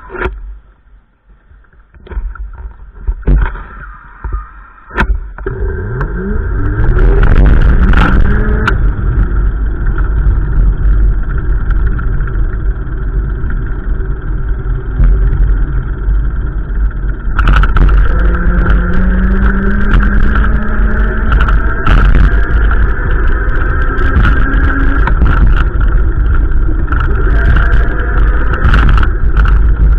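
A few sharp clicks and knocks, then a vehicle engine comes up, rising in pitch, and keeps running loudly with a heavy low rumble and some slow rises and falls in pitch.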